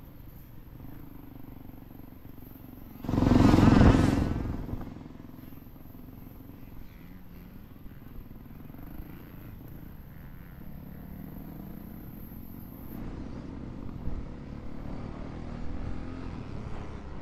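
Honda CRF450R's single-cylinder four-stroke engine running under way on a motocross track, with a sudden loud surge of revving about three seconds in that fades over the next second. The engine gets louder again near the end.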